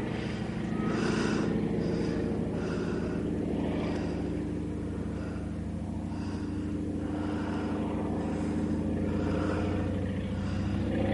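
An engine running steadily: a low, even drone made of several held tones.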